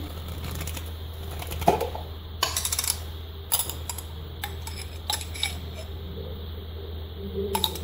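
Metal spoon clinking and scraping against a glass jam jar while scooping out orange jam: scattered light clinks, with a quick rattle of several about two and a half seconds in.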